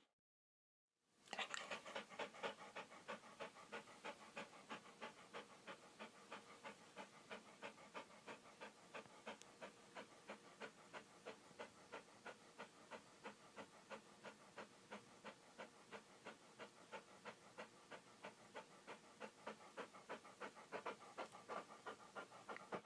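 Dog panting, quick and even, with short rapid breaths in a steady rhythm. It starts about a second in, after a brief silence.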